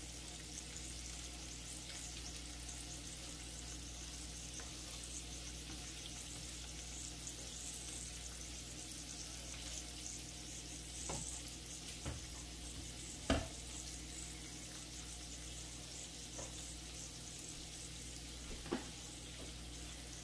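Sliced sausage sizzling steadily in hot oil in a nonstick frying pan as it is stirred with a plastic spatula, with a few short knocks of the spatula against the pan, the loudest about thirteen seconds in.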